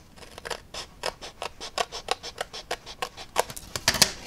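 Scissors cutting through cardstock in a quick run of short, crisp snips, several a second, with a louder clatter near the end.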